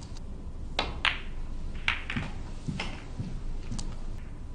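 Snooker balls clicking against one another: several sharp, separate clicks spread over a few seconds as a shot plays out.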